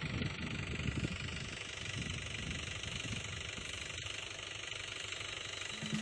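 Tractor engines running steadily at a distance.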